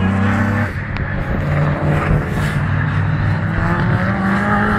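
Racing saloon car engines running hard as the cars pass on the circuit, their note shifting in pitch several times.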